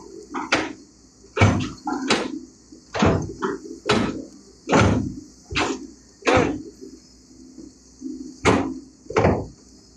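A series of irregular sharp knocks, about a dozen, with a pause of a couple of seconds near the end, over a steady high hiss.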